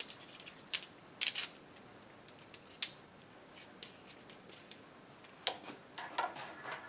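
Scattered light metallic clicks and taps: a steel rod and its spindle-stop plug being handled, then pushed into the lathe spindle bore near the end.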